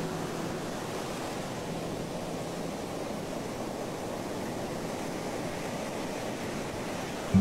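Steady, even rushing noise with no tones or music in it, level throughout with no swells.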